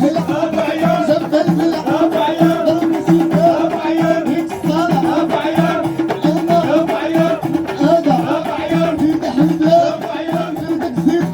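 Music with a steady beat of about two low pulses a second under a held note and a wavering melody line.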